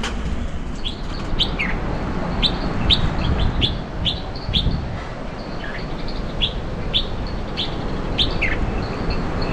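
A small bird chirping again and again: short, high chirps that drop quickly in pitch, one or two a second at uneven spacing. Wind rumbles on the microphone underneath.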